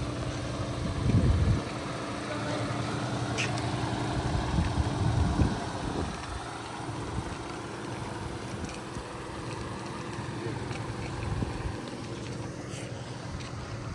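A boat engine idling with a steady low hum that weakens after about six seconds. Wind buffets the microphone about a second in and again around five seconds.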